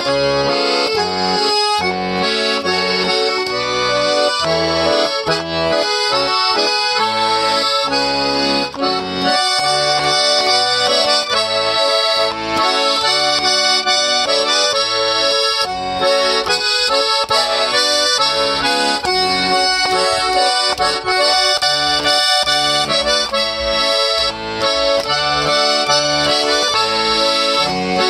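Accordion playing a continuous tune: a melody over a steady, alternating bass-and-chord accompaniment.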